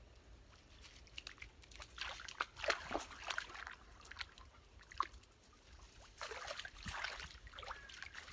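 A Dalmatian wading into shallow pond water, the water sloshing and splashing around its legs in two spells, about two and six seconds in.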